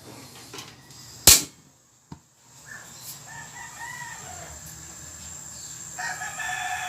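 A single sharp knock about a second in, then a rooster crowing twice, the second crow louder near the end.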